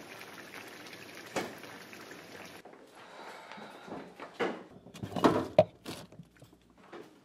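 Refrigerator door being opened and things inside handled: a run of short knocks and thuds, loudest about five seconds in. Before that, a steady faint hiss of background noise with a single click.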